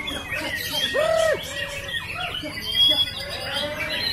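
Several caged white-rumped shamas (murai batu) singing at once: a dense tangle of overlapping whistles, chirps and rasping calls, with a loud, low arched note about a second in.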